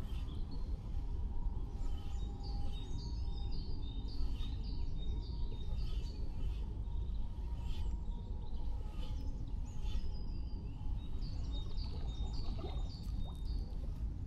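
Small birds chirping repeatedly, short falling notes coming every half second or so, over a steady low rumble of wind and the swollen creek's flowing water.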